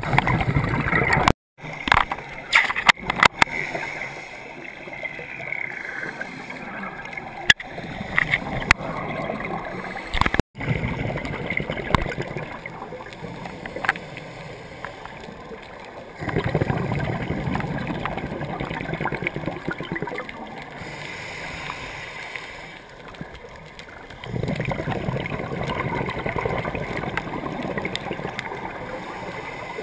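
Underwater sound of a scuba diver's regulator breathing: exhaled bubbles gurgling in long rushing bursts, with a few sharp clicks in the first seconds. The sound cuts out briefly twice.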